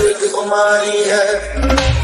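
Background music: a pitched melody over a beat, with a deep bass coming in about one and a half seconds in.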